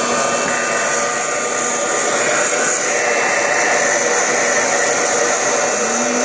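Wear-Ever Popcorn Pumper hot-air popper running steadily, its fan blowing hot air through coffee beans as they roast.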